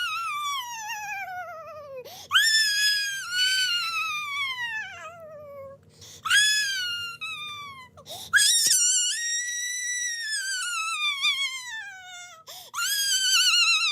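Baby-crying sound effect: a string of five long, very high-pitched wails, each wavering and sliding down in pitch, with short breaths between them.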